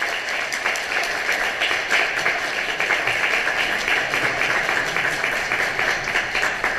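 Audience applauding steadily after a talk, the many claps blending into a dense patter that begins to die down near the end.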